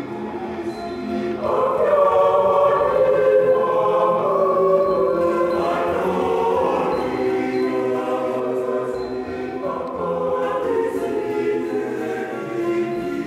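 Mixed choir of men's and women's voices singing in harmony, sustained chords that swell louder about a second and a half in, with a new phrase entering around ten seconds in.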